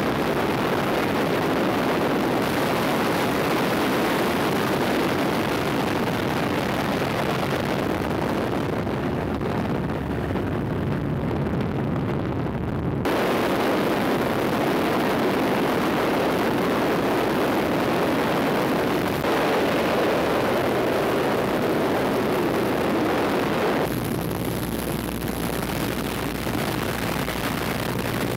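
Steady engine and wind noise heard from inside an aircraft in flight. The tone of the noise shifts abruptly twice, about halfway through and again near the end.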